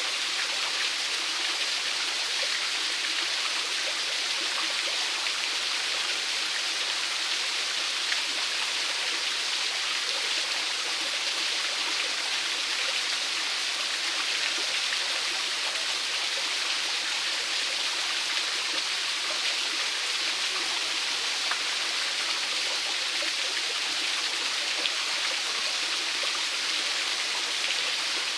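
Small waterfall splashing steadily into a creek, an even hiss of falling and running water.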